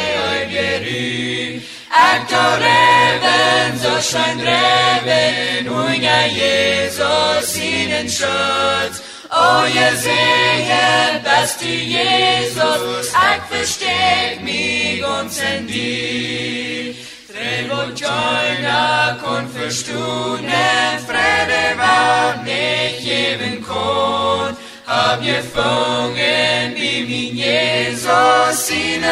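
Voices singing a slow hymn in Plautdietsch (Mennonite Low German), in phrases of about seven to eight seconds with brief breaks between them, over steady low held bass notes that shift at each new phrase.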